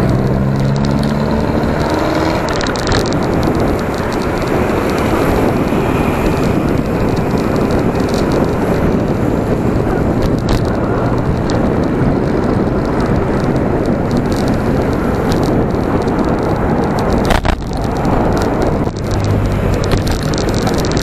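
Wind rushing over the microphone of a camera on a moving bicycle, mixed with tyre and traffic noise. Sharp knocks come a little after halfway and again near the end. A motorcycle engine passes close by near the end.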